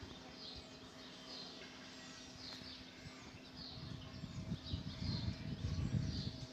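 A bird calling in the background: a short, high, falling chirp repeated about once a second over a faint steady hum. From about four seconds in, a louder low rustling rumble takes over.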